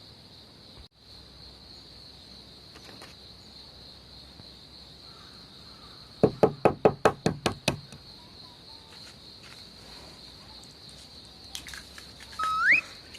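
Insects chirring steadily in a high, even chorus. About halfway in comes a quick run of about nine loud knocks, and near the end a short rising squeak.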